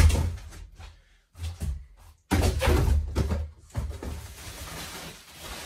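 Cardboard packaging being handled and pulled from a box: a loud thump at the start, then bursts of scraping and rustling cardboard.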